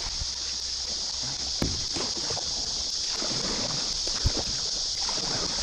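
Floodwater rushing steadily around a kayak running down a swollen, fast river, with a few splashes and short knocks from the paddle.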